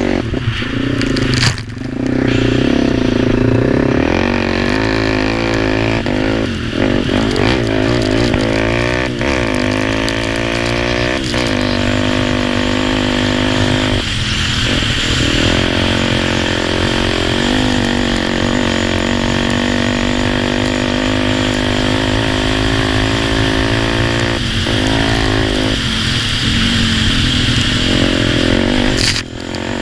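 Racing quad bike's engine running hard, its pitch climbing and dropping back again and again as it shifts gears. The engine note briefly dips about a second and a half in and again near the end.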